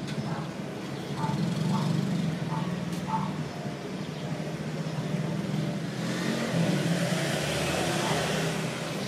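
Outdoor traffic noise: a steady low hum, with a vehicle going by that swells from about six seconds in and eases near the end. A few short high chirps come in the first three seconds.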